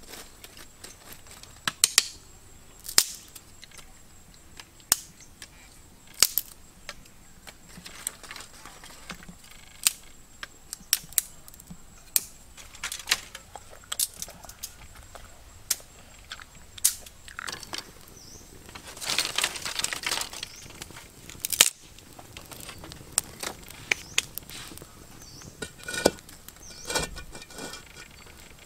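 Wood fire crackling, with sharp irregular pops about once a second and a longer rustle about two-thirds of the way through.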